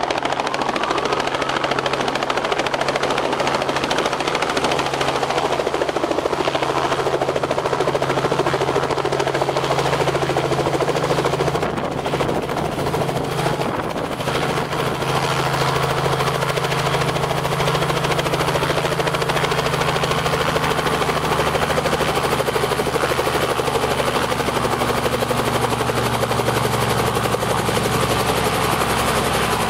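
Robinson R44 helicopter running: its rotor and six-cylinder Lycoming piston engine make a loud, steady drone as it comes down low and sets down, then keeps running on the ground with the rotor turning. The sound dips briefly about twelve seconds in.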